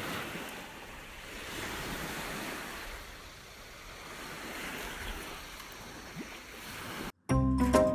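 Small waves washing up on a shell-strewn sandy beach, a steady rushing that swells and eases. It cuts off abruptly near the end and music begins.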